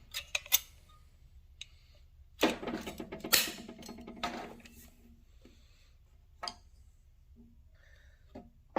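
Scattered clicks, taps and handling noise from work with a tube of Power Grab construction adhesive, with a denser cluster of clicks and a pitched sound lasting a couple of seconds in the middle.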